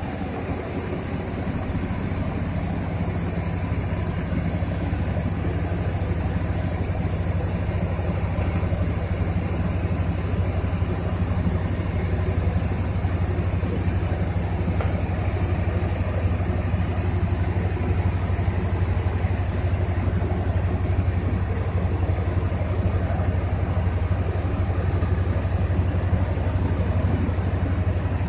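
Diesel engines of mobile cranes running steadily while the cranes hold and hoist a precast concrete girder, a low drone that grows a little louder about two seconds in.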